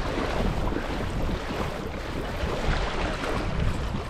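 Strong wind buffeting the microphone, a steady low rumble, over water splashing and lapping around a kayak on choppy water.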